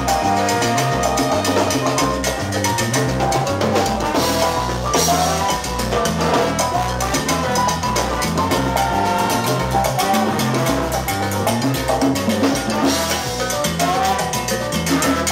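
Live cumbia band playing through a PA: brass and saxophone lines over keyboard, congas, timbales and a walking bass, with a steady dance beat.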